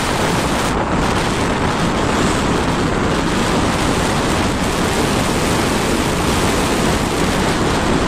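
Steady wind rushing over the microphone of a camera riding on a moving motorbike.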